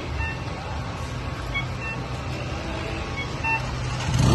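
A vehicle engine running steadily with a low hum, under a constant noisy hiss.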